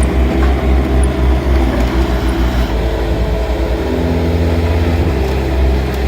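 Heavy equipment engine running steadily under load, its low note pulsing; about two-thirds of the way through the note changes and holds steadier for a moment before returning.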